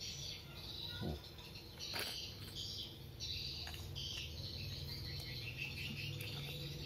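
Continuous high chirping over a steady low hum, with two short clicks about one and two seconds in as a small metal LED flashlight is handled while a battery is fitted into it.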